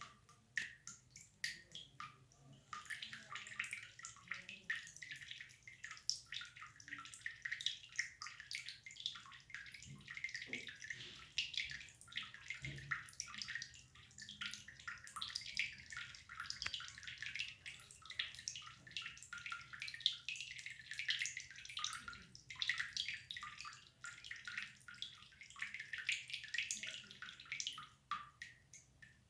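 Water dripping: a quick, irregular patter of many small drops a second.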